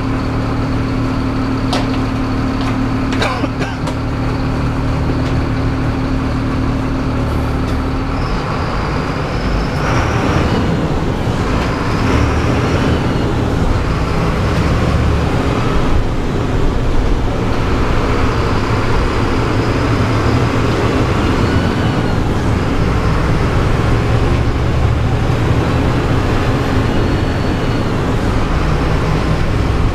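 City bus diesel engine idling with a steady hum and a couple of clicks. About eight seconds in the bus pulls away, and the engine note rises and falls repeatedly as it works through the gears, over tyre noise from the wet road, heard from the driver's seat.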